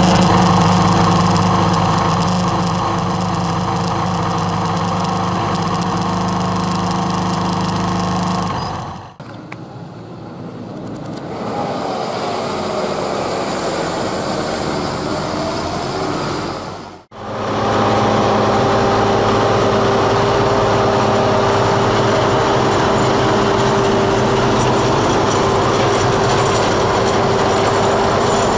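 Farm machine engines running steadily in three separate clips, with sudden cuts about nine and seventeen seconds in: first a small snow-clearing machine's engine, then, more quietly, a John Deere tractor working a silage pile, then a Deutz-Fahr tractor running with a steady whine over the engine.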